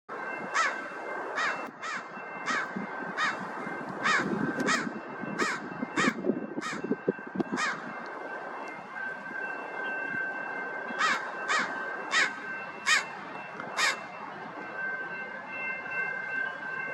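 American crow cawing: a run of about ten harsh caws over the first six seconds, then about five more starting around eleven seconds in. A faint steady high tone and a low rumble lie underneath.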